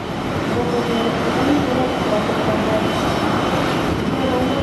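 CH-47J Chinook tandem-rotor helicopter running close by: a loud, steady rapid chop of the rotor blades, with a thin steady whine from its twin turboshaft engines on top.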